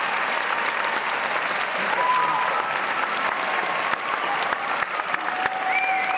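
Large audience applauding steadily, with a few voices calling out among the clapping.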